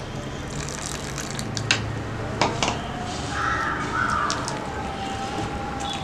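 Water poured into a stainless-steel bowl of thick gram-flour batter, then a steel spoon stirring the batter, with a few sharp clicks against the bowl.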